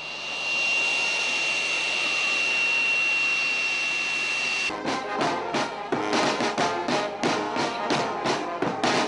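A jet airliner's engines run with a steady high whine over a rushing hiss for about four and a half seconds. Then a brass band starts up, playing with a regular beat.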